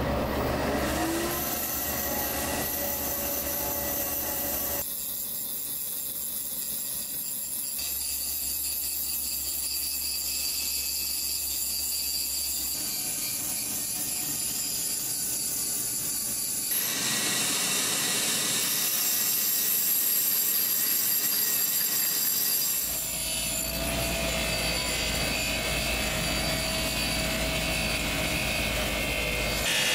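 Enamel being polished by machine: a flexible-shaft rotary tool grinds over the cloisonné surface, and later a bench polishing wheel runs against the vessel, with a steady motor hum under the rubbing. The sound changes abruptly several times.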